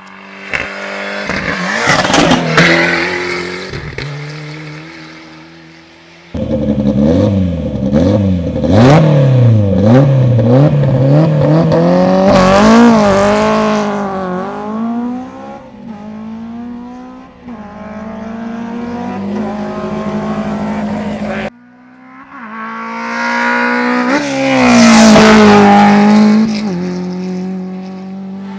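Rally cars driven flat out on a stage, in three cut-together passes. First a car approaches and goes by. Then an engine revs in rapid up-and-down swings before pulling hard and fading. The last car comes up loud and passes close.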